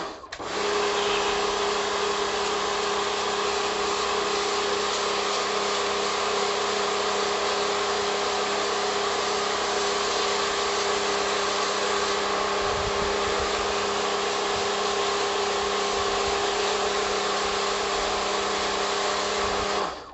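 Electric high-pressure washer running steadily: its motor and pump hum at a constant pitch under the hiss of the water jet on paving tiles, blasting off moss and algae.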